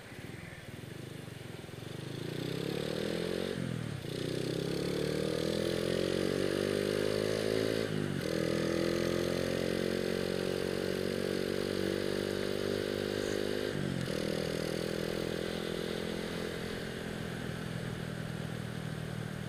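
Honda Astrea Grand's single-cylinder four-stroke engine running through a bored-out Honda Supra FI muffler while riding. Engine pitch climbs, then drops with gear changes about 4, 8 and 14 seconds in, and holds steady at cruising speed after each.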